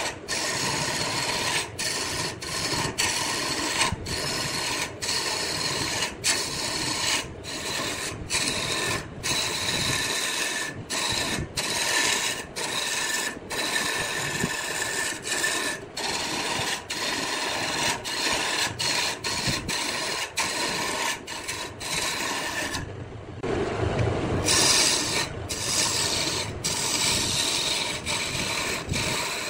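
Wood being worked on a spinning lathe: a steady rasping scrape of tool or abrasive against the turning workpiece, broken by many brief dropouts. A short stretch of lower, fuller noise comes about three-quarters of the way through.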